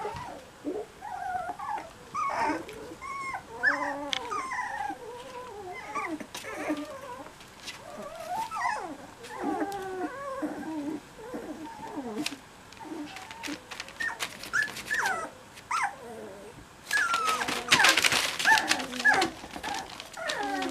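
A litter of young cocker spaniel puppies whimpering and squealing, with many short, high-pitched cries that rise and fall and overlap. Near the end there is a loud burst of rustling.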